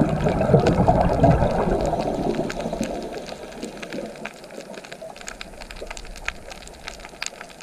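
Underwater, a loud bubbling rush of a scuba diver's exhaled bubbles in the first two or three seconds, fading away, over a steady scatter of sharp clicks and crackle from the reef.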